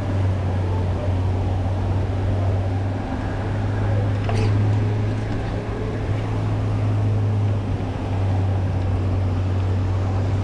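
Steady low mechanical hum from a pond aerator motor, with a haze of churning water behind it. A brief sharp click-like sound comes about four seconds in.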